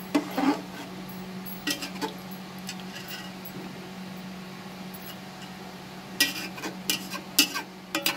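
Metal spatula clinking and scraping against the sides of a metal cooking pot while stirring rice into boiling water. There are a few knocks in the first two seconds, a quieter stretch, then a quick run of sharp clinks near the end, all over a steady low hum.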